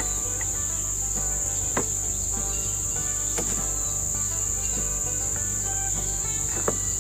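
Steady high-pitched chorus of insects, with background music underneath and a few faint clicks.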